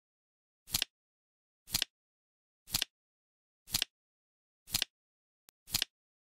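Flip-clock ticking sound effect: a short card-flap click once a second, six in a row, with dead silence between.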